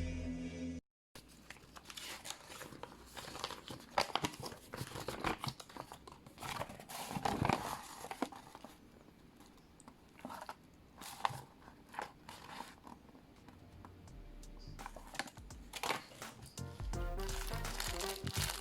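Crinkling and irregular sharp clicks of hand handling, like a packet or small parts being moved about. Background music comes back near the end.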